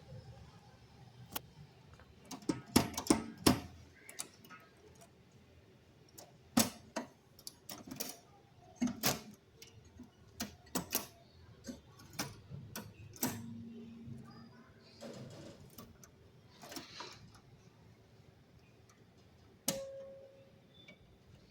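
An old Tamil typewriter clacking as its keys and mechanism are struck in uneven, irregular clusters of sharp clicks.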